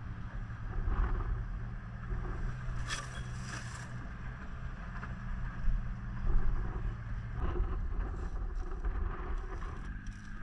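A vehicle's engine running steadily, with wind buffeting the microphone and a brief hiss about three seconds in.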